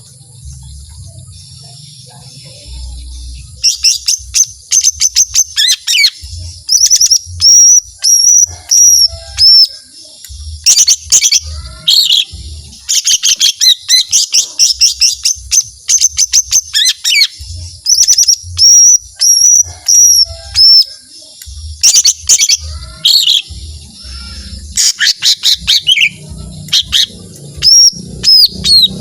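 Cucak ijo mini (small leafbird) singing loudly: after about three seconds of near quiet, repeated long bursts of rapid, sharp chattering notes mixed with high slurred whistles, the full rapid-fire song that keepers call 'tembakan'.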